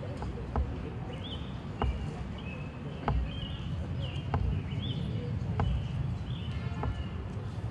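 A Tomb Guard sentinel's metal-tapped shoes clicking on the stone plaza as he marches, one sharp click about every 1.25 seconds. Birds chirp several times in between, over a steady low background rumble.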